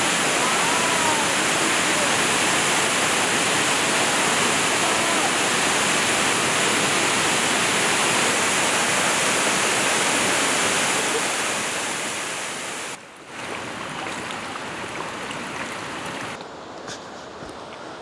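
Bulil Falls, a 60 m waterfall, pouring onto rock with a steady, loud rush of water. The rush fades about eleven seconds in, and a much quieter stretch follows.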